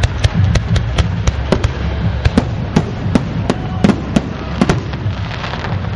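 Aerial fireworks display: a rapid, irregular string of sharp bangs from shells bursting, about fifteen in six seconds, over a steady low rumble. A crackling fizz rises near the end.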